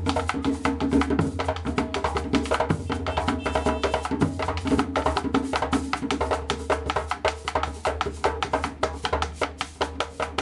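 Background music with a fast, even percussion beat over a steady bass line.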